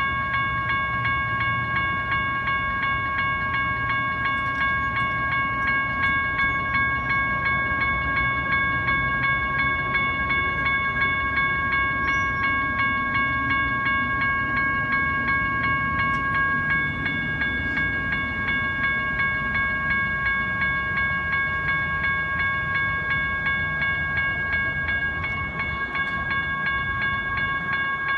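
Electronic railroad crossing bells ringing rapidly and without a break while the crossing signals are active, over a low rumble.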